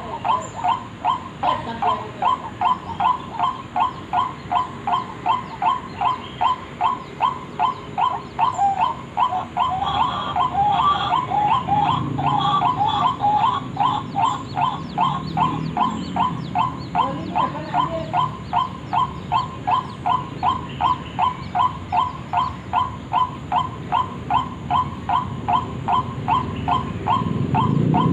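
White-breasted waterhen (ruak-ruak) calling, a short note repeated steadily about twice a second without a break. Between about 10 and 17 seconds in, a busier run of overlapping notes joins the steady calling.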